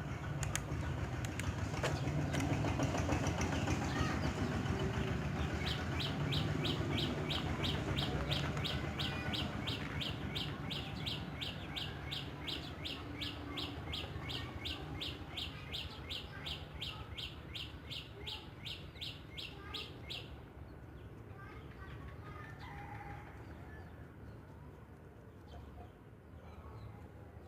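Rapid, evenly repeated high chirping, about three chirps a second, starting about six seconds in and stopping abruptly around twenty seconds, over a steady low hum.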